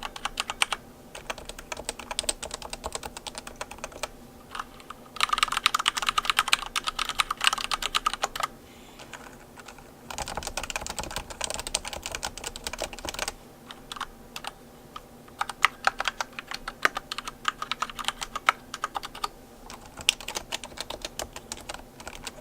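Rapid typing on a computer keyboard: dense runs of keystrokes, with the heaviest runs about five and ten seconds in and lighter, sparser key presses between them.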